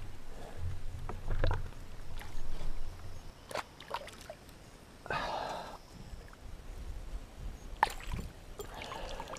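Water splashing beside a canoe as a hooked fish is grabbed out of the water, with a short splash about five seconds in and another near the end. Scattered knocks and rustles from handling against the canoe.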